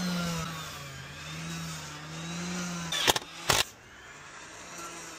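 A motor's low hum, wavering slowly up and down in pitch, fades out about three seconds in; two sharp knocks follow close together.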